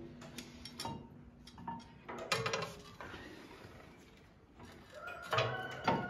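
Steel parts of a hydraulic top link being handled and turned over: a few metal clinks and clanks, with a louder run near the end that rings on briefly.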